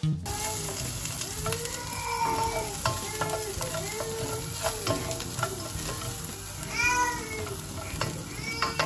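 Meat, cashews and onion sizzling in a ridged nonstick grill pan while a plastic spatula stirs them, with clicks of the spatula and a string of short squeaks as it scrapes across the pan.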